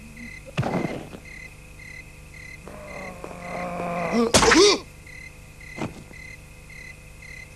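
Cartoon scuffle sound effects: a thud about half a second in, a rising tone, then a loud bonk with a wobbling ring, and a smaller knock near the end. Under them runs a steady, pulsing high chirp.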